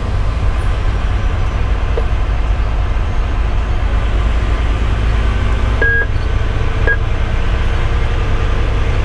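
Steady in-cab running noise of a Pierce Velocity fire engine driving on the highway: the 470 hp Detroit Series 60 diesel with road and tyre rumble. Two short high beeps sound about a second apart past the middle.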